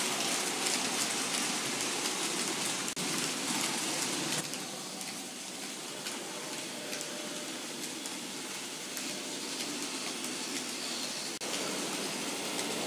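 Model freight train rolling past: a steady rushing noise of small metal wheels running over the model track, briefly dropping out twice.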